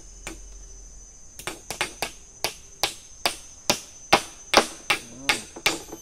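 Hammer driving nails into the wooden boards of a tree-house cabin: a run of sharp strikes at about two to three a second, starting about a second and a half in. A steady high insect drone runs underneath.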